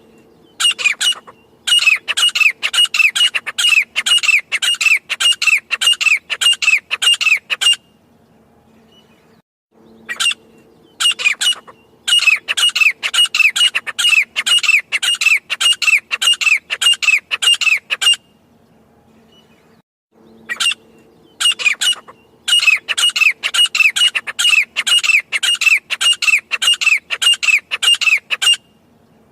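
Grey francolin calling: three loud bouts of rapidly repeated, harsh notes, about three or four a second, each bout opening with a few separate notes and lasting around seven seconds, with short pauses between bouts.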